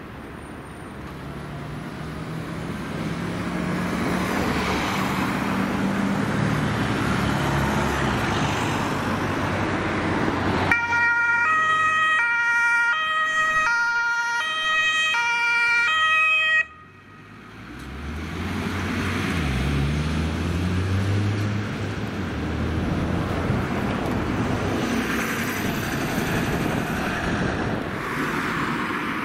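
An ambulance's two-tone siren (German Martinshorn) sounds for about six seconds, alternating high and low notes, and cuts off abruptly. Before and after it, a vehicle engine accelerates, rising in pitch as the ambulance pulls away.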